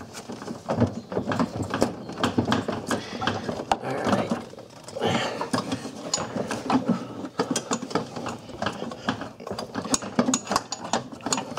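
Steel hydraulic clutch line being worked by hand up through a cramped engine bay: irregular clicks, taps and scrapes as the metal tube catches on brackets and other lines.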